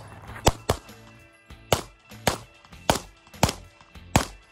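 Pistol shots at paper targets, about seven: a quick pair near the start, then single shots roughly every half second, with background music underneath.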